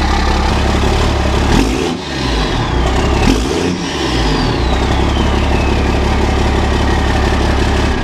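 1996 Dodge Ram 2500's 12-valve Cummins inline-six turbo diesel running through a 4-inch straight-pipe turbo-back exhaust with a loud, steady low rumble. It is revved briefly twice, about two and three and a half seconds in, and a high whistle falls in pitch afterwards.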